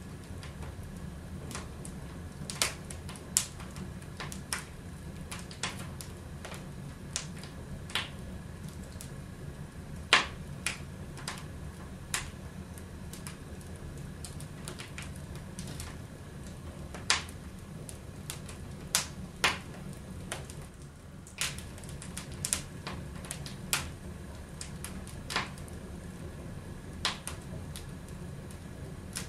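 Wood fire crackling in a fireplace: irregular sharp pops and snaps, a few at a time with pauses between, over a steady low rumble, the loudest pop about ten seconds in.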